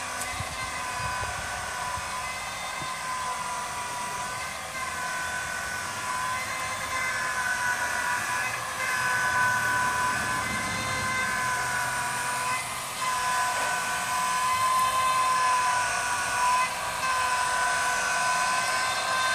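Homemade electric drive on a Hill PCP high-pressure hand pump running: twin 12-volt DC motors turn a chain-and-sprocket crank that works the pump handle up and down. It gives a steady whine that wavers slightly in pitch and grows a little louder after about seven seconds.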